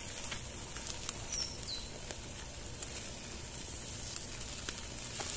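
Open wood fire crackling with scattered sharp pops, under a steady sizzle from chicken pieces roasting on a wire grill over the flames.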